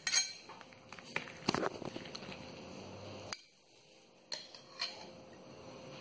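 Knife and spatula clinking and scraping against a ceramic plate as a slice of cake is cut and lifted out: a scatter of sharp clicks, with a short dead-silent break a little past halfway.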